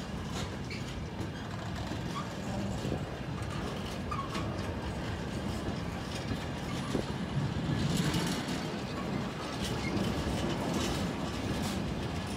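Empty container flat wagons of a freight train rolling past at steady speed: a continuous rumble of steel wheels on rail, with scattered clanks and knocks as the wheelsets cross rail joints.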